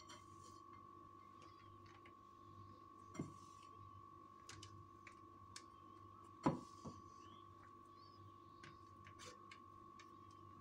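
Faint, scattered taps and light clicks as handfuls of crumbly ground-peanut mixture are dropped into a stainless steel cake frame, the two clearest about three and six and a half seconds in, over a steady faint high-pitched whine.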